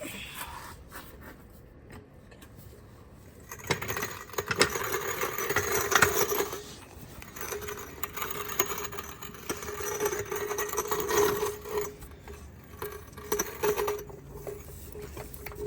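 Low-profile floor jack being worked under a car: metal rattling and clicking, quiet at first and louder from about four seconds in, coming in uneven bouts.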